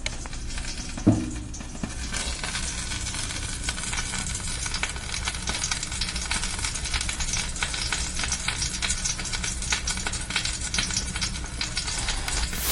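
Aloo tikki (potato, lentil and chickpea patties) frying in hot oil, a steady sizzle with dense crackling, broken by one sharp knock about a second in.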